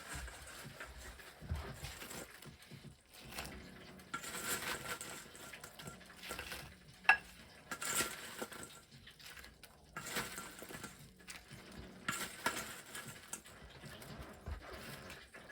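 Kitchen utensils clinking and scraping on dishes while food is plated, irregular, with one sharp clink about seven seconds in.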